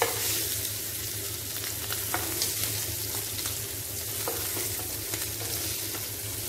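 Masala-coated prawns sizzling in shallow oil in a nonstick frying pan, with a few sharp clicks of a spoon against the pan as the fried pieces are lifted out.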